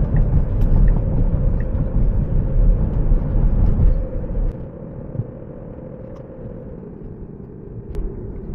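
Road and tyre rumble heard inside the cabin of a moving Tesla Model 3, steady and heavy at first, then dropping to a quieter hum about halfway through.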